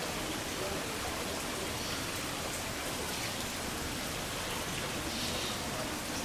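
Heavy typhoon rain pouring steadily.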